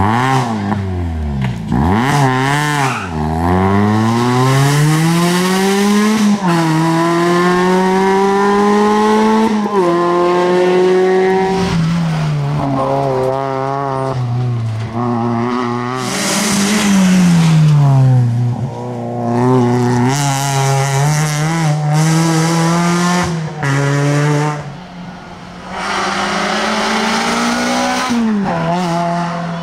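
Peugeot 206 rally car's engine revving hard, its pitch climbing through each gear and dropping on gear changes and lifts for corners. Several passes are cut one after another, so the sound breaks off and restarts a few times.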